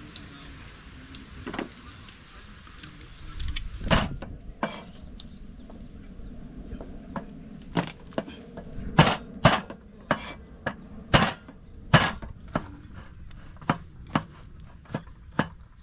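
Cooking preparation: an uneven series of sharp knocks and clacks, with a heavier thump about four seconds in and the knocks coming thicker and louder from about seven seconds on.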